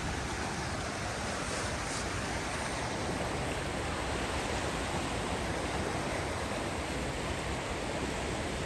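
Flood-swollen river rushing through rapids, a steady, even rush of water.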